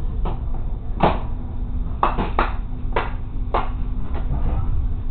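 A stationary railcar idling with a steady low rumble and hum, over which come about eight sharp, irregular knocks and clatters, the loudest about a second in.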